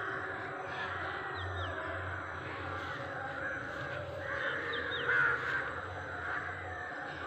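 A dense chorus of many birds calling at once, an unbroken tangle of overlapping calls and chirps, swelling louder for a moment about five seconds in.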